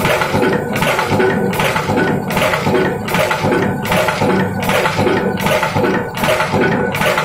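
Power press fed by a pneumatic air feeder running continuously, a short burst of clatter and air hiss at each stroke, about every three-quarters of a second, over a steady machine hum.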